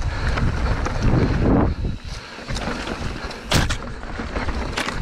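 Wind buffeting the action camera's microphone over the noise of a mountain bike rolling on a rocky dirt trail, louder for the first two seconds. A sharp knock comes about three and a half seconds in.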